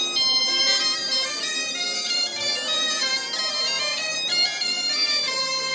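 Small handheld folk wind instruments, reedy or whistle-like, playing a quick stepping melody together with an accordion, loud and steady.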